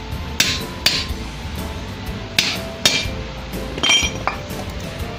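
A bearing being knocked into the steel hub of a washing machine clutch housing with a metal tool: sharp metallic knocks in pairs, the last few ringing briefly.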